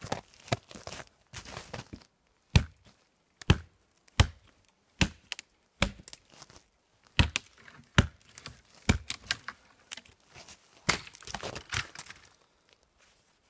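Small hatchet chopping into a thin standing sapling: about ten sharp blows, roughly one a second, with smaller cracks and rustles of twigs and wood between them.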